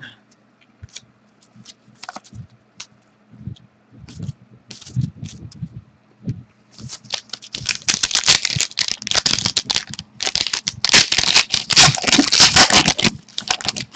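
Trading cards and their packaging being handled by hand: scattered light clicks and scrapes, then dense rustling and scraping from about seven seconds in.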